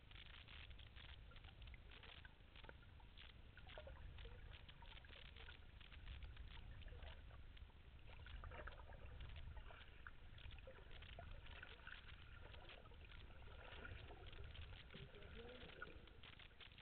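Faint underwater sound of a swimming pool heard through a submerged camera: a low muffled rumble with a steady patter of tiny clicks and crackles.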